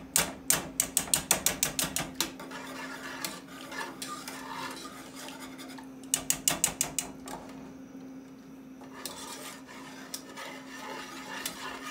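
Heavy metal wire whisk beating liquid in a metal saucepan, clinking quickly against the pan's sides at about eight strokes a second. It comes in two fast runs, at the start and again about six seconds in, with slower, softer scraping strokes between.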